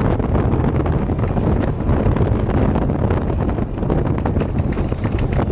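Wind rushing hard over the microphone over the steady rumble of a Test Track SIM car travelling along the open-air outdoor track.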